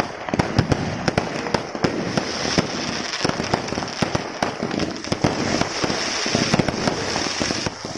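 Fireworks display: a dense, rapid barrage of cracks and pops from bursting shells and crackers. A steady high hiss joins about two seconds in and cuts off near the end.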